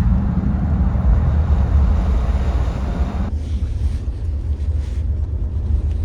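Wind buffeting the microphone: a heavy, steady low rumble. A higher hiss over it cuts off suddenly a little over three seconds in.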